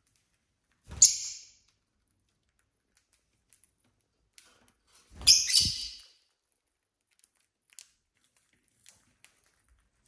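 Two short, shrill lovebird chirps, one about a second in and one about five seconds in, with faint ticks between them.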